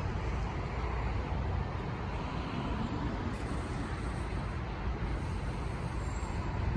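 Steady city traffic noise: a low, even rumble of cars on a wide road.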